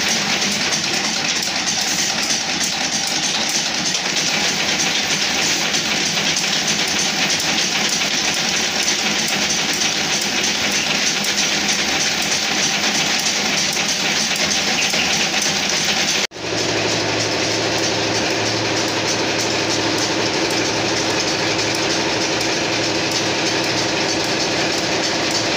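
Brush-tufting machines running with a rapid, steady mechanical clatter. After a cut about two-thirds of the way through, a different machine is heard, with a steady low hum under the clatter.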